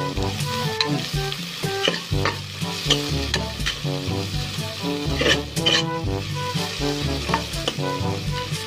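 Sliced red onions and garlic sizzling in oil in a pot, with a spatula scraping and knocking against the pot as they are stirred. Background music with a bass line plays throughout.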